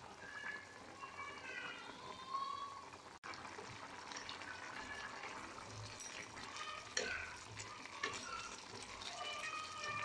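Water bubbling at a rolling boil in an aluminium kadai, then, after a cut, a wooden spatula stirring vermicelli in the hot water, knocking against the pan a few times. Short high chirping tones run through the background.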